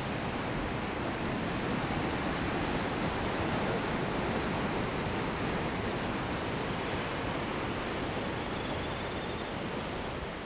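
Steady rush of ocean surf breaking on the shore, mixed with wind.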